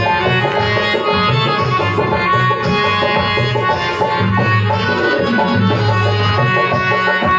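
Live Indian devotional music, amplified through a PA: tabla-style hand-drum strokes in a steady rhythm under a keyboard holding sustained melody notes.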